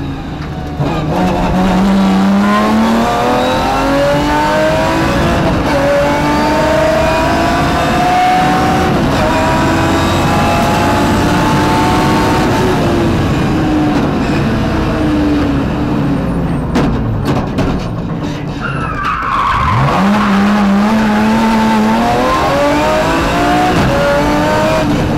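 BMW rally car's engine heard from inside the cockpit at full throttle, its pitch climbing in steps through several upshifts. It eases off and falls through the middle, drops sharply about twenty seconds in as the car slows, then climbs again as it accelerates hard.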